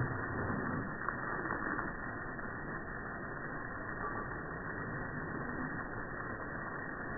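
Steady rushing spray of water from a garden hose hitting the lawn and a dog.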